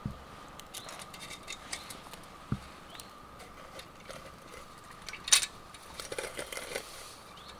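Small twig fire crackling in the base of a camp kettle, with scattered light clicks and one sharper knock about five seconds in, over a faint steady high hum.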